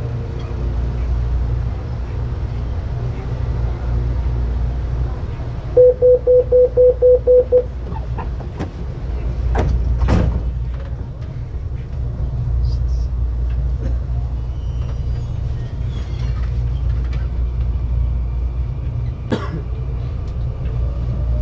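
Commuter train standing at a platform with a steady low hum. About six seconds in a quick run of about eight short beeps sounds the door-closing warning, and a knock follows around ten seconds in. Near the end a rising whine comes as the train starts to pull away.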